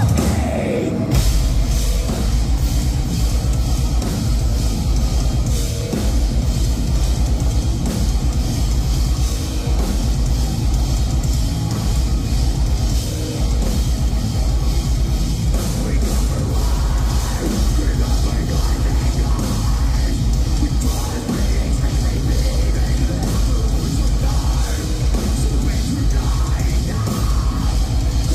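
Live heavy metal band playing loud: distorted guitars, heavy bass and drums with cymbals. A falling pitch slide opens it, and the full band comes in about a second in.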